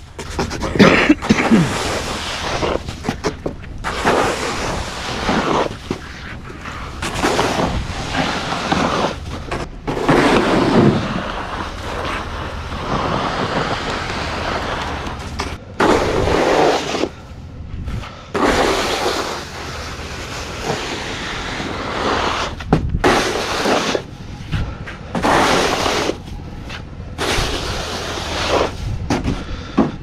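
Snow shovel scraping across a paved driveway and pushing heavy wet snow, in repeated strokes of about a second each with short pauses between them.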